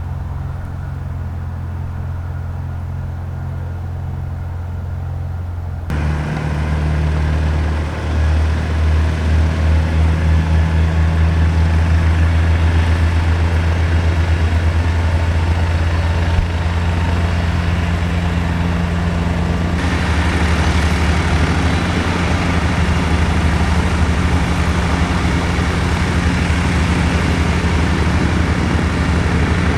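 Aircraft engine running close by, a steady low hum with a fast pulse; it gets louder about six seconds in and again, with more hiss, around twenty seconds in.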